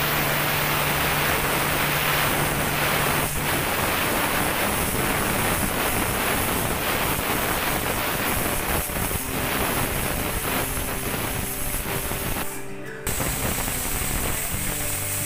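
Aluminium pressure cooker venting steam through its weight valve with a loud, steady hiss: the cooker is at full pressure while the momos steam inside. The hiss breaks off for a moment near the end, then carries on.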